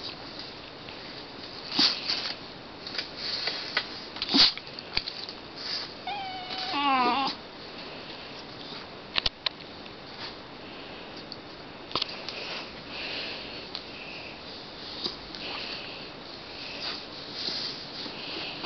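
West Highland white terrier yawning with a squeaky, wavering whine about six seconds in, lasting about a second, among a few short sharp clicks.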